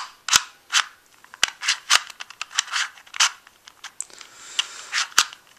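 Plastic Eastsheen 2x2 puzzle cube being turned by hand: an irregular run of sharp clicks, about a dozen, with short scrapes as the layers rotate. The mechanism feels dry and scratchy and does not corner-cut.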